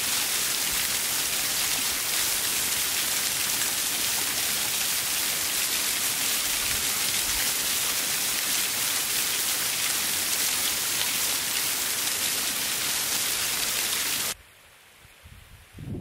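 Steady, loud hiss of falling water, even throughout, that cuts off abruptly about two seconds before the end, where it gives way to much quieter sound.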